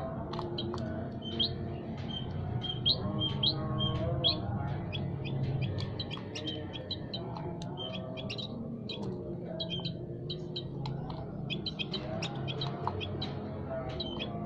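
Small songbirds in an aviary chirping: many short, high chirps repeated quickly and overlapping, over a steady layer of lower tones.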